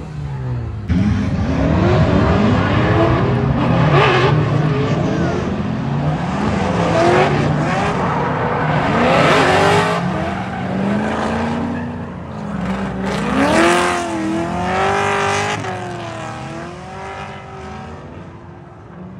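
Drift cars on track, their engines revving up and down over and over as they slide past, with tyre squeal. It gets sharply louder about a second in and fades near the end.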